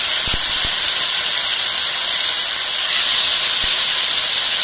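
Marinated chicken pieces sizzling in hot oil in a non-stick pan: a steady loud hiss with a few small pops, as fresh pieces are laid into the oil.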